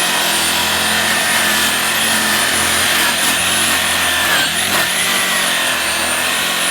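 Chicago Electric variable-speed electric polisher running with a buffing pad on a sanded aluminum wheel coated in metal polish, a steady high whine over rushing pad noise. The pitch dips briefly about four and a half seconds in as the pad loads up, then recovers.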